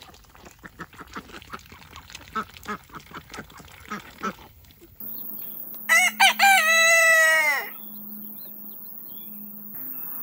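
Chickens and ducks foraging, a patter of short soft clucks and calls. Then a rooster crows once, a full cock-a-doodle-doo of a couple of seconds that opens in quick broken notes and ends in a long falling note. It is much louder than the flock.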